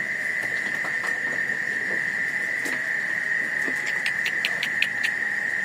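Sheep eating peanut leaves: scattered crunching and rustling clicks, with a quick run of them near the end. A steady, high-pitched drone of night insects runs underneath.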